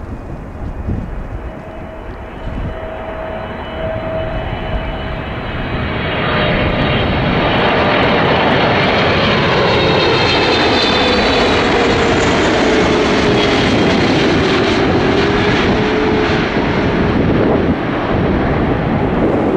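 Jet engines of a KLM Boeing 777-300 on approach to land, growing louder about six seconds in and staying loud, with whining engine tones that slide down in pitch as the aircraft passes.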